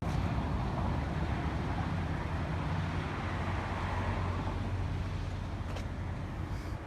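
Road vehicle driving: a steady low engine hum under an even road and wind noise, starting suddenly.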